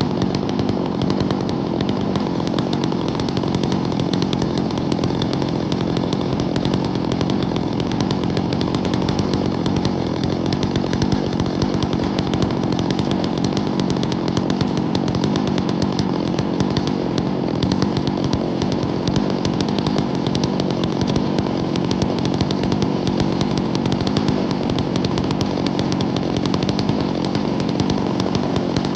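Chainsaw on a chainsaw mill running steadily at full throttle, ripping a long cut through sweet gum to take off a slab.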